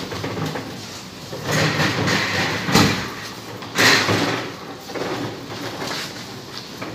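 Rattling and clunking of a metal stretcher trolley being pushed and handled, with two sharp knocks about three and four seconds in.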